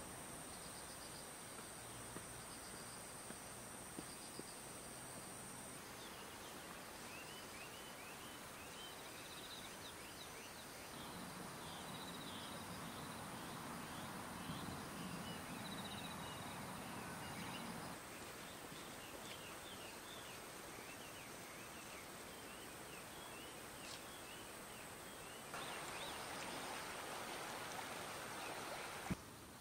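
Faint natural outdoor ambience: a steady high insect drone with many scattered short chirps over a hiss of flowing water. The mix shifts abruptly a few times, the water louder in stretches, and a short click comes near the end.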